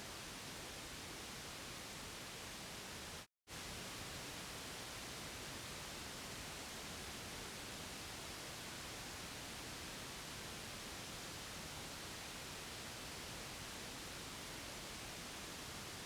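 Steady white-noise hiss, the kind played to soothe a baby to sleep, even across low and high pitches. It cuts out completely for a split second about three seconds in, then resumes unchanged.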